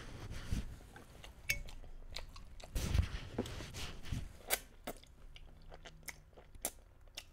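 Close-miked chewing of Cajun chicken pasta, with noodles drawn into the mouth and many small wet mouth clicks and smacks; the loudest cluster comes about three seconds in.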